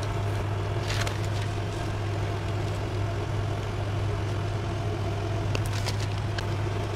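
A steady low hum runs throughout, with a few light rustles of paper pattern pieces being handled about a second in and near the end.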